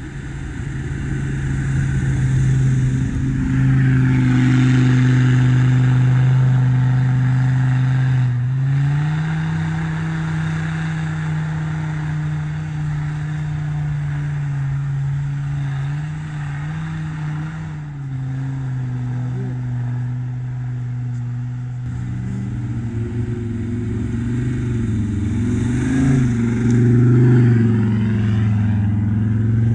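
Off-road 4x4 engine working under load through deep slush and mud. Its note steps up about eight seconds in and drops back about ten seconds later. Near the end, as the vehicle comes close, it revs up and down several times over a hiss of tyres churning slush.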